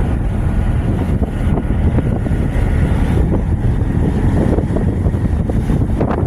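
A tugboat's engines running under way, with wind buffeting the microphone and water rushing along the hull.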